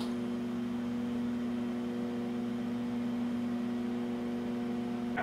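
Steady electrical hum with a fan's hiss from still-powered cinema film projection equipment.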